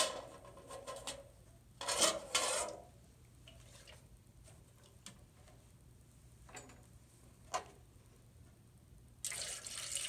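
A few knocks and clatters as a plastic tub and jug are handled, the loudest right at the start and two more about two seconds in. From about nine seconds in, dirty wash water pours from the plastic tub into a metal pail with a steady splashing hiss.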